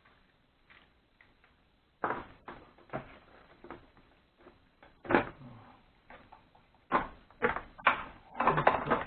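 Irregular clicks and knocks of tools and scooter parts being handled, starting about two seconds in and growing busier toward the end.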